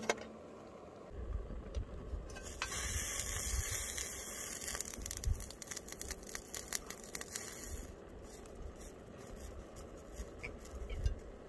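Aluminium mess tin of boiling potatoes on a gas canister stove, hissing with steam for several seconds as its lid comes off, with light clinks of the metal lid. A low rumble of wind on the microphone runs underneath.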